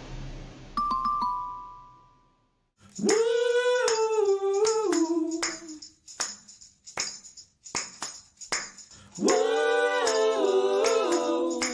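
Music: a voice singing two long, gliding phrases, with sharp percussive taps between them, after a brief high chime-like tone near the start.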